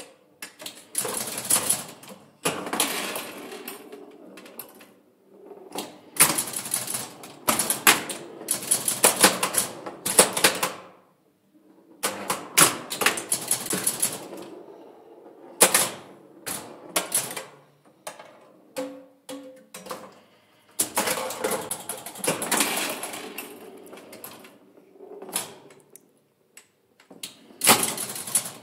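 Bally Six Sticks, a 1965 electromechanical pinball machine, in play: bursts of rapid mechanical clacking and clatter from its bumpers, flippers and relays, with short pauses between rallies.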